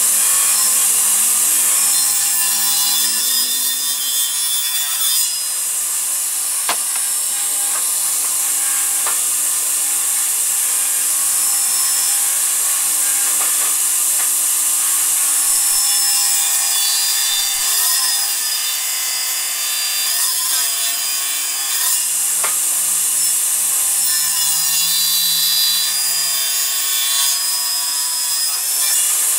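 Tilting-table log saw (Wippsäge) with its circular blade cutting through oak beams: a loud, continuous high whine and rasp whose pitch sags each time the blade bites into the wood, over several cuts, with an occasional sharp click.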